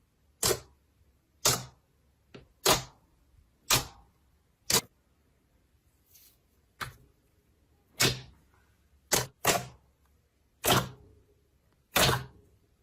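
Slime being pressed and poked, giving about a dozen sharp pops, roughly one a second with a short pause midway.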